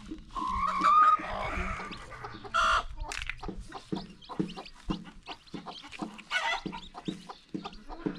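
Chickens clucking, with many short calls and a louder rising call about a second in.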